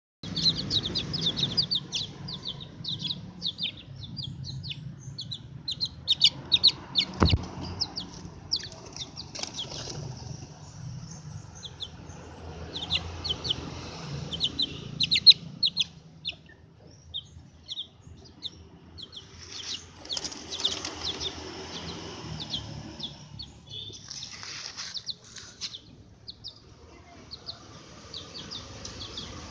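Birds chirping: many short, high-pitched chirps in quick runs, coming and going throughout, with a single sharp knock about seven seconds in.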